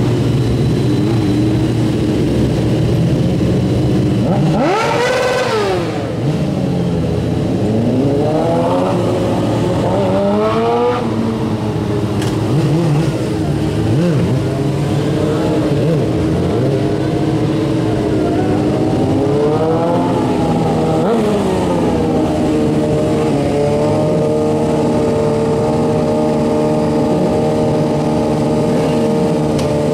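Sport bike engines revving during stunt riding: a sharp rev that rises and falls about five seconds in, several shorter rises and falls through the middle, then the engine held at a steady pitch over the last several seconds.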